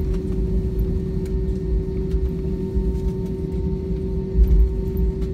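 Cabin noise of an Airbus A320 taxiing: the engines running at idle with a steady hum over a low rumble, and a low bump about four and a half seconds in as the wheels roll over the taxiway.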